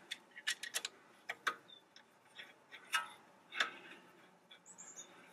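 Light metallic clicks and taps, a dozen or so at irregular intervals, as a front brake caliper is set back over new pads and its guide bolts are lined up by hand.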